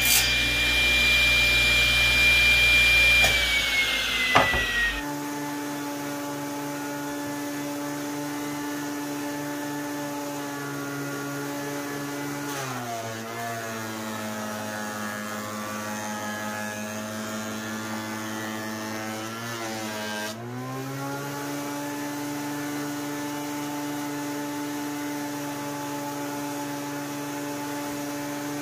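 A table saw cutting wood, its high whine sliding down in pitch a few seconds in as the blade spins down. Then a 13-inch benchtop thickness planer runs with a steady hum. For about eight seconds from around the middle its pitch sags as a board feeds through the cutterhead under load, then comes back up.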